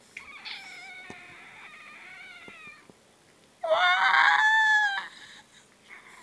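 Domestic cat meowing twice: a long, quieter, drawn-out meow that slowly falls in pitch, then a loud meow of over a second that starts with a rising pitch.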